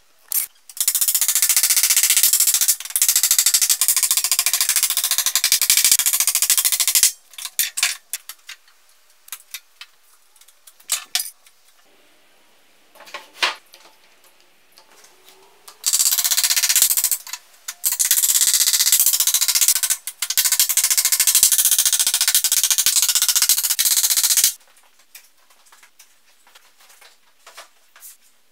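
Woodworking noise while building pallet shelves: two long stretches of dense rasping noise, with scattered sharp knocks and clicks of wood and bar clamps between them.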